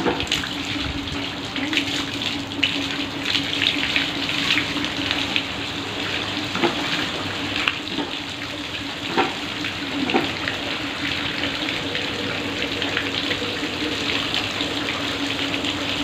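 Water pouring from a garden hose and splashing onto people's heads and into the puddled ground below: a steady gush broken by irregular splashes.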